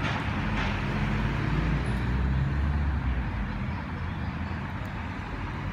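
Low rumble of street traffic, swelling for a second or two in the middle.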